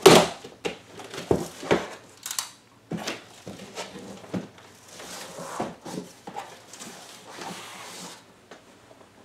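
A large cardboard shipping box being cut open across the top: a blade slitting and scraping through the tape and cardboard, amid clicks, knocks and rasping as the cardboard flaps are worked and pulled open. A sharp knock right at the start is the loudest sound.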